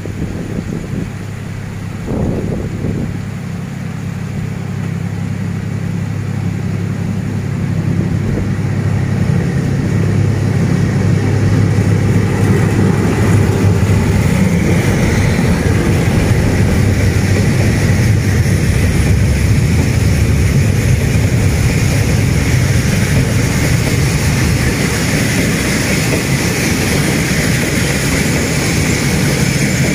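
D19E-942 and D11H-345 diesel locomotives hauling a freight train up a grade: the engines' low hum grows louder as they approach and pass about halfway in. Then comes the rushing rumble of freight wagons rolling past on the rails.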